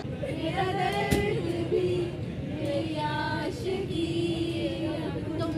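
A woman singing, with long held notes.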